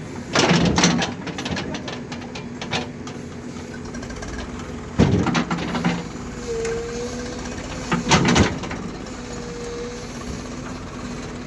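An engine hums steadily, broken three times by loud, rough bursts of noise about half a second to a second long.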